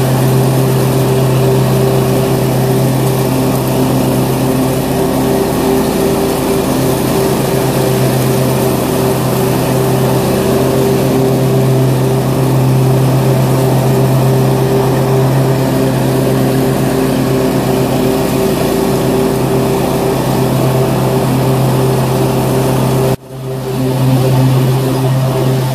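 Engine of an Exmark 48-inch Turf Tracer walk-behind mower running steadily under load while mowing grass, with a brief break in the sound near the end.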